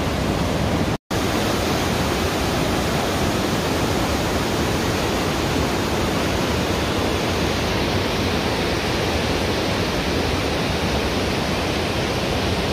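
Milky glacial meltwater river rushing and churning over boulders, a loud, steady wash of water noise. It drops out for an instant about a second in, then carries on unchanged.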